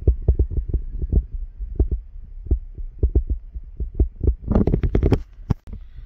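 Low, irregular thumps of footsteps and a handheld camera jolting with each step on a wet dirt track, then a short burst of crackling and rustling about four and a half seconds in.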